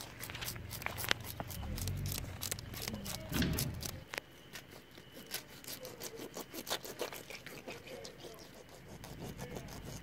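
Knife scraping the scales off a fish, in quick, irregular strokes.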